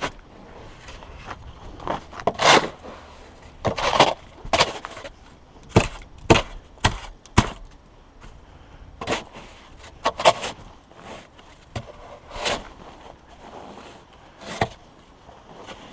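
Snow shovel cutting into and scraping heavy packed snow on a roof: more than a dozen irregular crunching, scraping strokes, some short and sharp, some longer.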